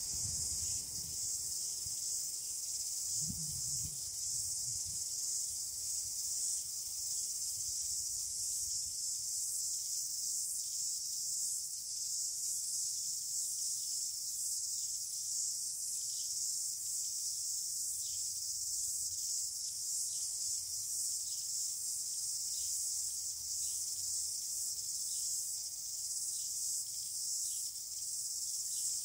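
Steady high-pitched chorus of insects, a continuous shrill hiss with no break, over a faint low rumble in the first few seconds.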